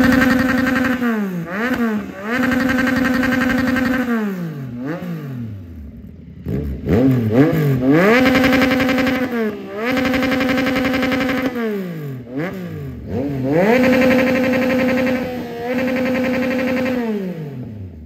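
2022 Yamaha XSR900's 889 cc inline-three, breathing through an aftermarket exhaust, being revved while parked: quick blips, then revs that climb, hold high for a second or two and fall back, several times over. It drops back near idle about five seconds in, and the sound fades out at the end.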